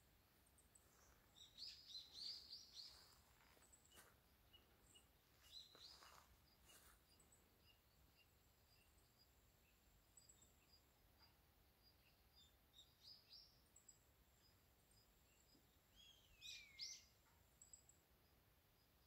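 Faint bird chirps and calls against a quiet background: clusters of high chirping about two seconds in and again around six seconds, and a few falling whistled calls near the end.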